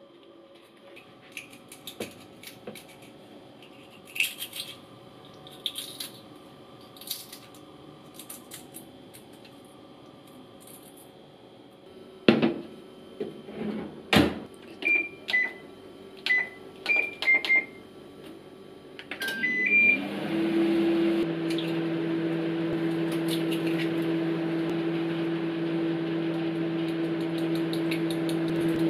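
Foil butter wrappers crinkling, then two knocks as a microwave oven door is handled, a string of short keypad beeps, and the microwave starting up and running with a steady hum.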